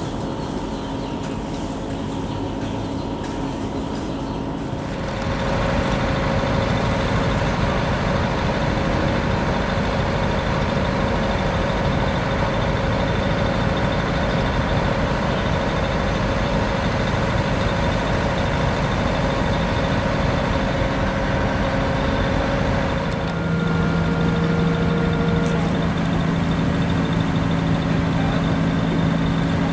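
Engines running steadily. The sound gets louder about five seconds in, and a new steady hum joins about 23 seconds in.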